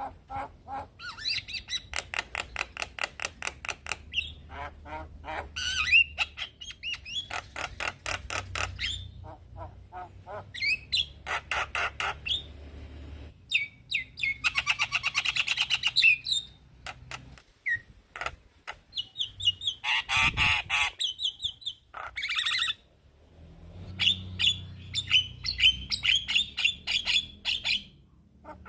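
Male Javan myna singing: bursts of rapid, harsh repeated chattering notes mixed with squawks and short whistled phrases, broken by brief pauses.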